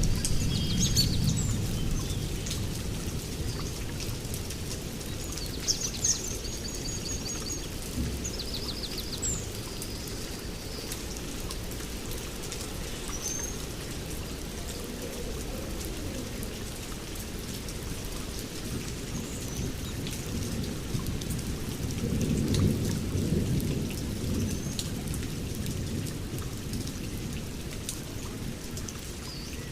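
Steady rain with low thunder rumbling at the start and again about two-thirds of the way through. Birds chirp with short calls and trills in the first third.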